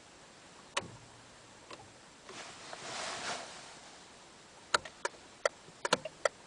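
A run of sharp clicks and ticks in a Peugeot 307 just before the engine is cranked: one click about a second in, a brief soft hiss a couple of seconds later, then a quick burst of about eight clicks near the end.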